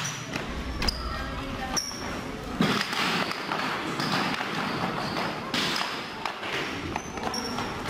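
Scattered knocks and thuds on a wooden parquet floor as a fire-hose nozzle and hose are handled and competitors move about, over background chatter of young people. A few short high squeaks.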